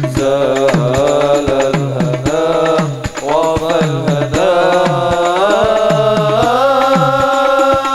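Islamic devotional sholawat music: a gliding, ornamented melodic line over a steady drum beat of about two to three hits a second.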